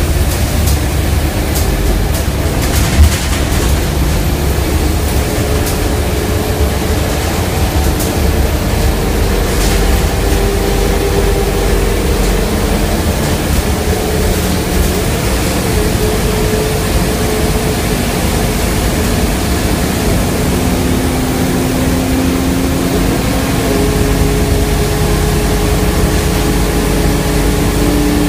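Scania K230UB Euro V single-deck bus under way, heard from inside the passenger cabin: a steady low engine and road drone with an engine whine that slowly rises in pitch near the end. A single sharp knock about three seconds in, and light rattles in the first few seconds.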